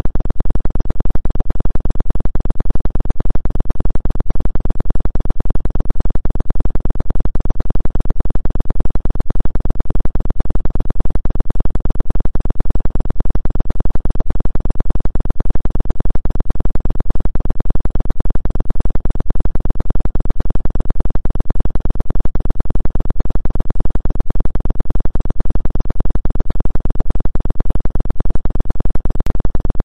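Electronic tone generated for a 2 Hz 'acupuncture' healing-frequency track: a loud, steady low hum that pulses evenly.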